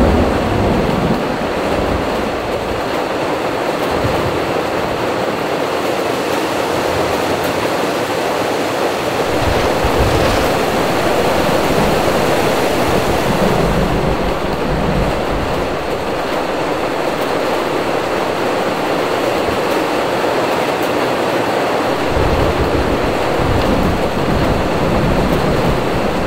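Heavy rain pouring in a thunderstorm with strong gusting wind, a steady loud rush with uneven low rumbles from the gusts.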